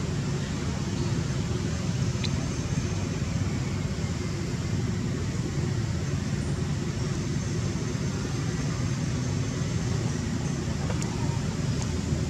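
Steady low rumbling background noise, like distant traffic or wind on the microphone, with a few faint high ticks.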